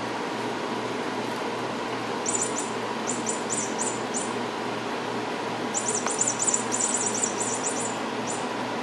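Kitten claws clicking on a tile floor in quick bursts of high ticks as the kittens scamper, over a steady background hiss.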